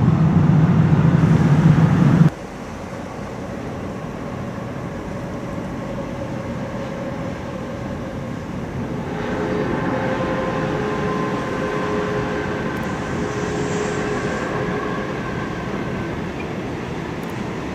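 A train's loud, low rumble ends abruptly about two seconds in. From about nine seconds an electric-hauled freight train runs along the line, a steady hum of several tones over the rumble of its wagons.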